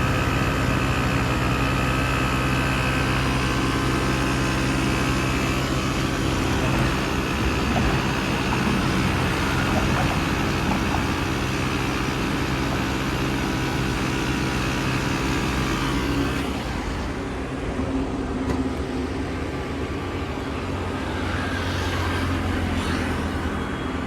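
Portable tyre inflator's compressor running steadily, pumping the spare tyre up toward 30 psi. The sound changes about two-thirds of the way through, its higher part dropping away.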